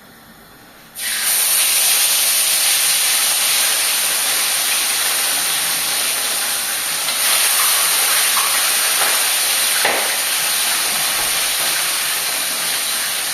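Chicken pieces going into hot frying oil: a loud sizzle starts suddenly about a second in and keeps on steadily.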